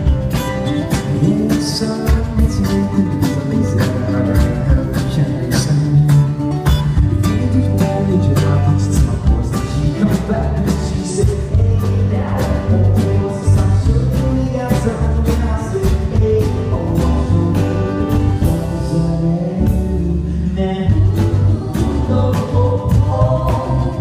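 Live band playing a song: a man singing over strummed acoustic guitar, with electric bass and a steady drum beat.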